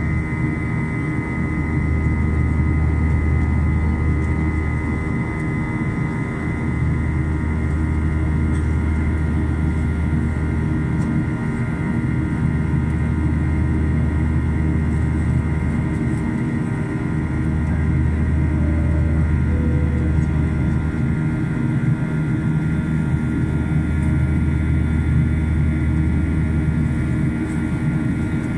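Boeing 737-800 cabin noise in flight, heard from a window seat beside the wing: the CFM56-7B turbofans drone steadily over the rush of airflow, with a steady high whine on top and a low hum that swells and eases every few seconds.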